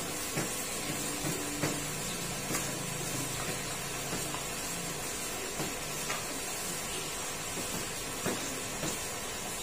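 Cut crab pieces being tossed in tapioca flour by a gloved hand in a stainless steel bowl: scattered light clicks of shell against the metal over a steady background hiss.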